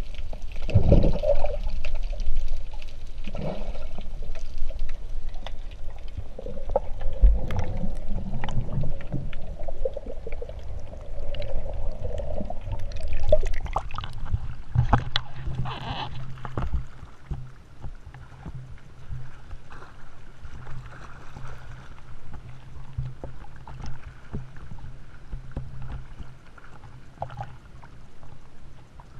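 Sea water sloshing, splashing and bubbling around a swimmer's action camera as it moves underwater and breaks the surface with the swim strokes. A steady low hum runs underneath from about halfway.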